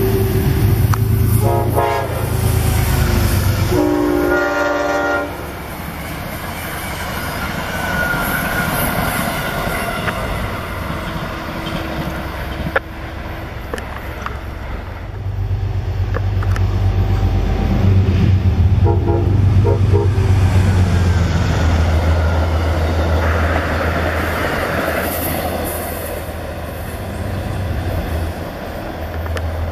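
Diesel trains rumbling through a station, the low engine rumble swelling from about halfway as a train draws near. A chord-like train horn sounds briefly about two seconds in, longer about four seconds in, and in a few short blasts later on.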